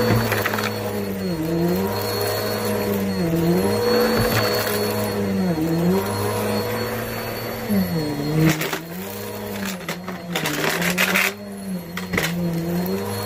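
Vacuum cleaner running and sucking up dirt, carpet powder and a coin mix. The motor's hum dips in pitch every second or two. From about eight seconds in, clicks and rattles of debris being drawn up come through over it.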